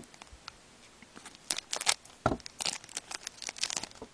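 Foil wrapper of a hockey card pack crinkling in short bursts as it is handled and opened by hand, with a soft thump about halfway through.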